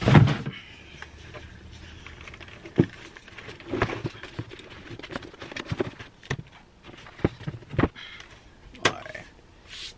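Cardboard packaging being handled: a loud thump and rustle right at the start, then scattered knocks, scrapes and rustles as a boxed electronic device is worked out of its rigid box.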